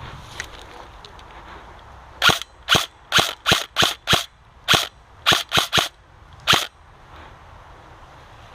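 Airsoft gun firing about eleven rapid single shots at an uneven pace, each a sharp crack, over about four seconds.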